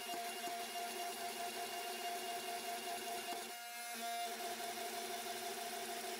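Forging press running with a steady whine while its dies squeeze a hot san mai billet, with a brief change in tone about three and a half seconds in.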